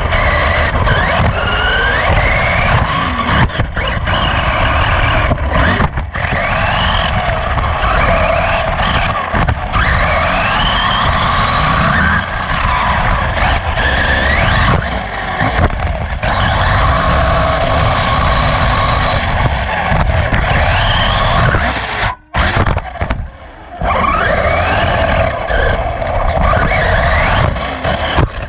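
Radio-controlled race car heard from a camera mounted on it: the motor and drivetrain whine rises in pitch again and again as it accelerates down the straights, over a steady rumble of the wheels and chassis on the track. The sound drops out briefly about three-quarters of the way through.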